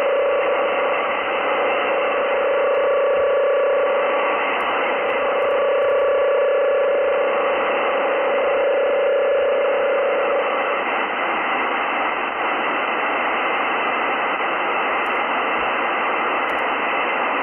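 Shortwave radio receiver audio in narrowband FM near 27.846 MHz: a steady static hiss with a steady tone of roughly 550 Hz and fainter higher tones that stop about ten seconds in, leaving only the hiss. The tones come from the offset data-burst signal on the frequency.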